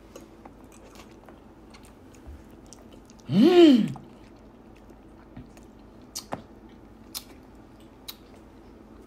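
A man chewing a soft mouthful of creamed spinach, with a few faint mouth clicks. About three and a half seconds in he lets out one loud "mmm" of enjoyment that rises and then falls in pitch.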